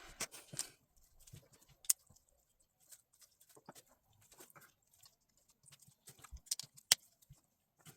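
Small plastic LEGO pieces clicking and rattling as they are handled and pressed together, with a short rustle at the start and sharper clicks about two seconds in and near seven seconds in.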